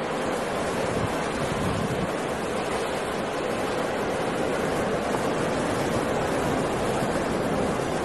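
Rough storm sea: heavy surf breaking in a steady, dense wash of water noise, with wind.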